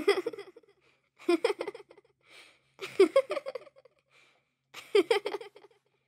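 A little girl's creepy giggling laugh, in four short bursts of quick 'ha-ha' pulses about every second and a half, with faint breaths between.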